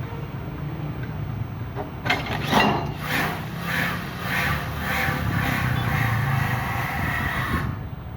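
Excavator engine running steadily, with a run of rhythmic knocks about one and a half a second from about two seconds in until near the end, as the excavator taps a concrete pile into the river bank.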